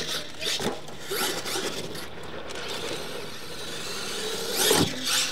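Electric R/C monster truck running on dirt: its motor and gears whine, rising and falling with the throttle. There are sharp knocks of the truck landing, and a loud rush of tyres scrabbling near the end.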